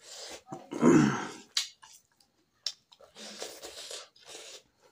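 Close-up mouth sounds of a person eating rice and pork curry: wet chewing and lip-smacking with sharp mouth clicks and breathing. A short, louder low vocal sound comes about a second in.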